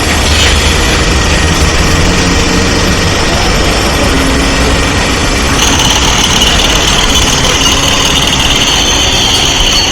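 Heavy construction machinery engine running steadily, with a high-pitched whine joining in about halfway through.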